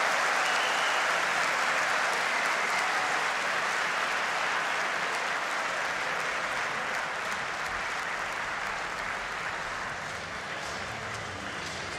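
Crowd applauding the point that ends a table tennis game, loud at first and slowly dying away.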